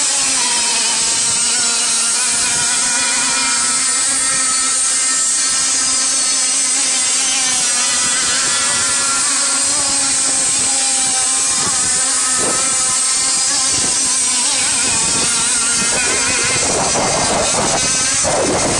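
Radio-controlled racing boats, an outrigger and a hydroplane, running flat out across the water: a steady, high buzzing motor whine with a slightly wavering pitch. A rushing noise comes in near the end.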